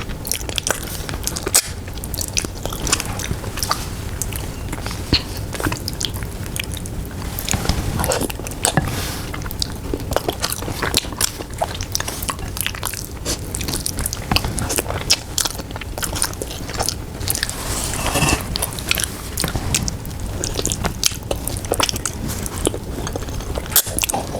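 A person chewing and biting into pata tim, soft braised pork hock, with rice: a close, continuous run of small mouth clicks and chewing noises.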